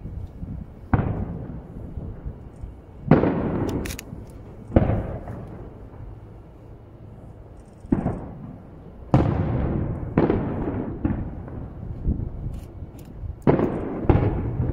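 Aerial firework shells bursting about half a kilometre away: a series of about nine sharp booms at irregular intervals, each trailing off in a rolling rumble.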